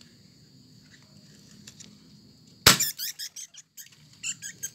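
A sudden sharp clatter a little past halfway, then a run of short, high-pitched squeaks from a small rat cornered by a cat. Crickets chirp steadily underneath.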